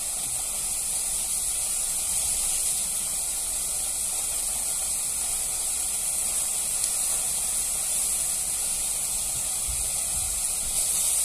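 Meat sizzling in a frying pan on the stove: a steady, even hiss.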